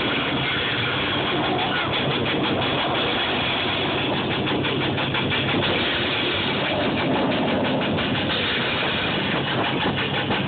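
Military jet formation flying overhead: steady, loud jet engine noise with a crackle through the middle seconds.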